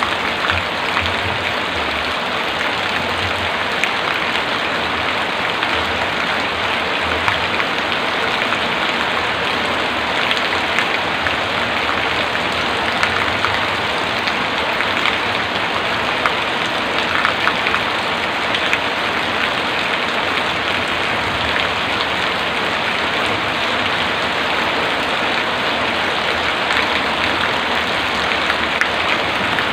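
Heavy rain falling steadily: a dense, even hiss with many small drop hits.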